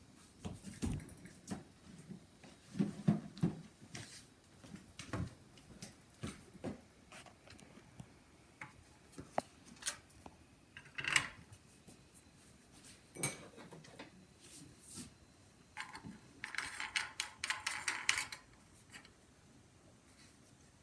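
Faint scattered clicks and knocks of lamp parts being handled and fitted together during assembly, with a denser rattling clatter for about two seconds near the end.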